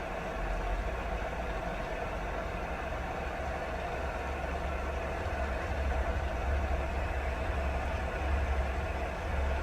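Steady rain falling, an even hiss with a constant low rumble beneath it.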